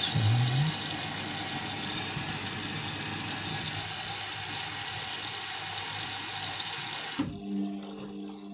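Indesit washing machine taking in water: a steady rushing hiss of the fill through the inlet valve, with a brief low rising hum near the start, cutting off suddenly about seven seconds in as the valve closes.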